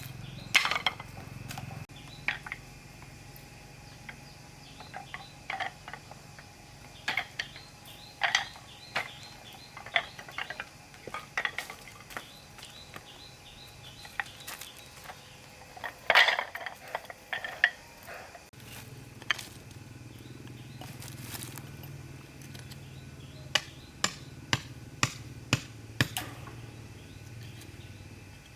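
Irregular knocks and clinks of objects being handled, with a quick run of evenly spaced knocks near the end and faint chirping behind.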